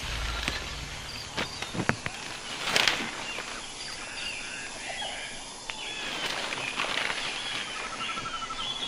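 Forest birds chirping and trilling, one with a quick rapid trill near the end, over a steady outdoor background. In the first three seconds a few sharp knocks and a short rustle of leaves and branches being brushed by hand.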